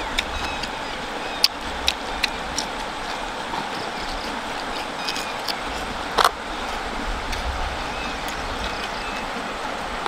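Steady rush of a shallow river flowing over stones, with sharp wet clicks and smacks of someone chewing food close to the microphone, including one louder smack about six seconds in.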